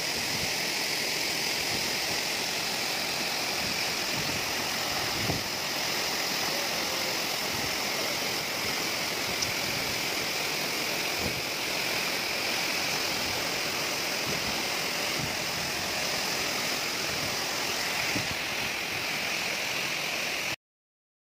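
Waterfall plunging into a rock pool: a steady rush of falling water and churning spray, which cuts off suddenly near the end.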